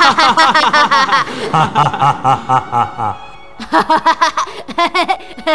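Hearty, loud laughter in rapid ha-ha pulses, breaking off about three seconds in and starting again, over background music.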